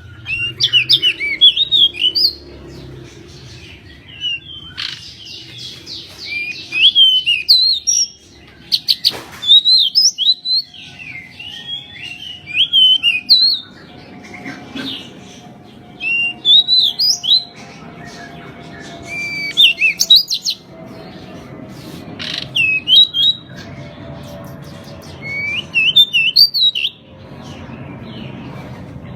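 Pied bushchat (decu) singing: short, fast phrases of quick rising and falling whistled notes, repeated every few seconds with pauses between.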